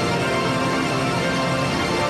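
Background music with held notes.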